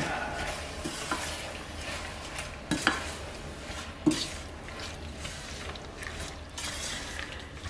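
A spatula stirring blackcurrants and sugar in a stainless steel saucepan, scraping around the pan, with two louder knocks about three and four seconds in, over a soft sizzle of the hot fruit as the sugar melts down.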